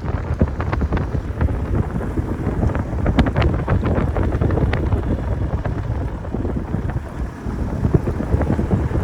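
Wind buffeting the microphone: a loud, unsteady low rumble with scattered crackles and pops.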